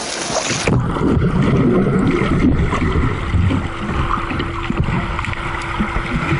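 Pool water splashing at the surface, then, under a second in, the muffled low rumble and gurgle of water heard underwater as the camera goes under. A steady low hum joins about halfway through.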